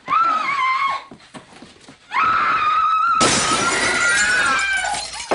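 High-pitched screaming, first a short cry and then a longer held one. About three seconds in, a long crash of shattering glass and breaking objects starts under it.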